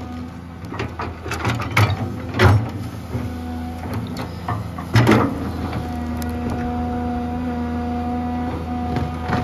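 Komatsu PC200-3 excavator's diesel engine running under load while the bucket digs into dry ground, with several sharp clanks and thumps from the bucket and its linkage. About halfway through, a steady whine from the machine sets in and holds for several seconds.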